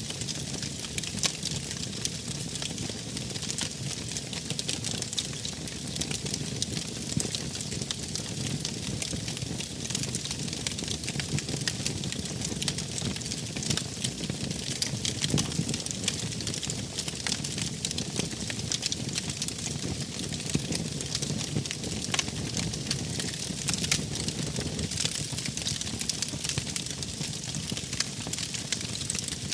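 Wood fire crackling, with many small irregular pops and snaps over a steady low rumble of burning.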